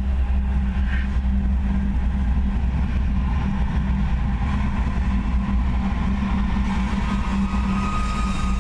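Norfolk Southern diesel freight locomotives passing close by under power, a steady low engine rumble and hum.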